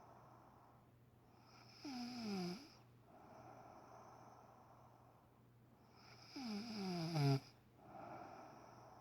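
A woman snoring loudly in her sleep: two snores about four and a half seconds apart, each falling in pitch, the second louder and cutting off sharply, with quieter breathing in between.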